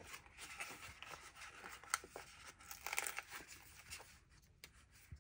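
Faint rustling and crinkling of paper sticker sheets being handled, with a few light clicks.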